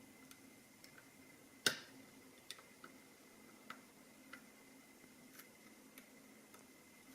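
Faint, scattered small metallic clicks of a lock pick working the pin tumblers of a padlock under tension, with one louder click about 1.7 s in.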